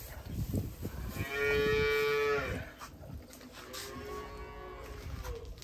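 A calf bawling: one loud, high-pitched, steady call about a second in, then a second, fainter call.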